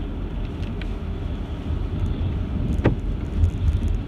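Steady low rumble of a car driving on a wet road, heard inside the cabin, with one sharp knock a little under three seconds in.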